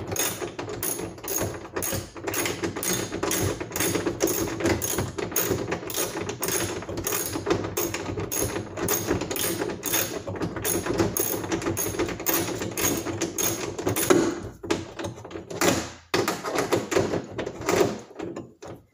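Hand ratchet with a 10 mm socket clicking quickly and evenly as it is worked back and forth, snugging a plastic grille's retaining nut. It stops about fourteen seconds in, and a few more clicks follow near the end.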